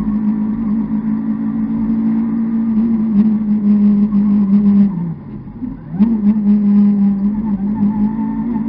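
Opel Corsa rally car's engine heard from inside the cabin, running hard at high revs with a steady pitch. About five seconds in, the revs sag and the sound drops away for about a second. It then snaps straight back up to full revs.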